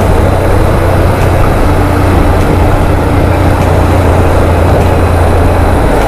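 Motorcycle ridden at a steady cruising speed: a constant low engine drone under loud, even rushing noise from wind and road.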